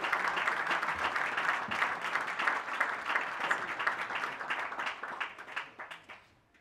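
Audience applauding, a dense patter of many hands clapping that fades away near the end.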